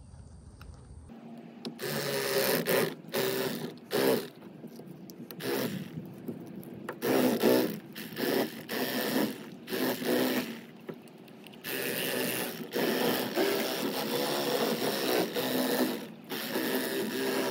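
Electric fillet knife buzzing as it cuts through a bluegill, starting about a second in and running in short on-off spurts, then more steadily over the last several seconds.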